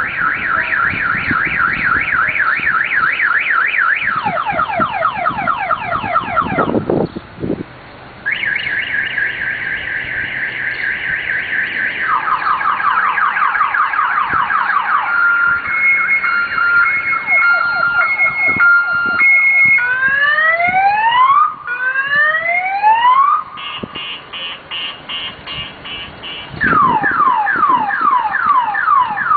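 Car alarm siren sounding and cycling through its tone patterns: rapid chirps, a warble, a two-tone alternation, slow rising whoops and falling chirps. There is a brief break about seven seconds in.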